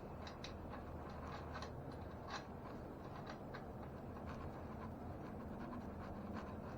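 Faint scattered clicks and light scraping of small parts and tools being handled, most of them in the first few seconds, over a steady low hum.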